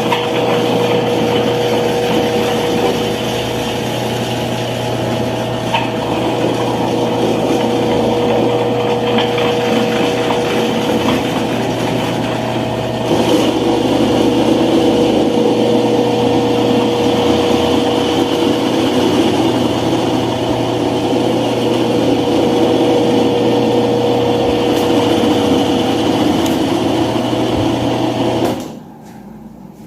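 Britânia/Philco 155 W electric fan running steadily: a motor hum with a steady whine over the rush of air. About halfway through it gets louder and fuller, and near the end the sound cuts off suddenly.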